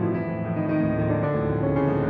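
Grand piano played solo in a classical piece: dense, sustained chords and held notes, weighted in the low and middle register.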